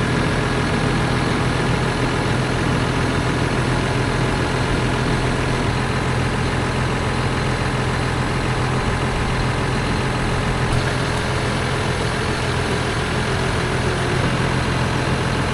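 Tractor engine running steadily at a constant speed, an even low hum.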